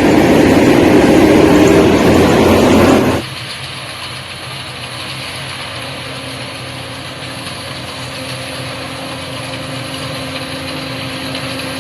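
Rice combine harvester running: loud engine and machinery noise for about three seconds, then a sudden drop to a quieter, steady running hum with a constant low tone.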